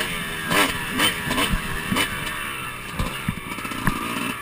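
Dirt bike engine revving up and down as it is ridden along a dirt track, with a few sharp knocks in the second half.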